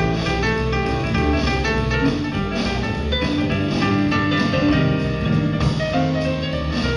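A band playing jazz-style music, with guitar and drums.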